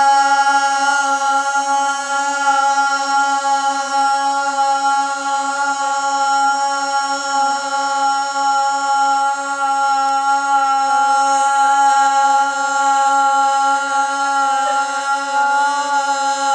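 Three girls' voices holding one sung note together in unison, a long steady "super note" held without a break or a change in pitch.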